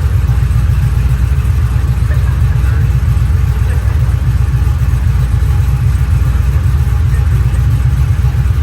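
1987 Chevrolet Caprice with a 6.0-litre LS V8 under way, a steady low engine and road rumble.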